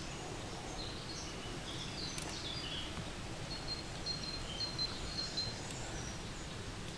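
Outdoor ambience: steady low background noise with small birds chirping, a few gliding high notes about two seconds in and a run of short repeated chirps in the middle.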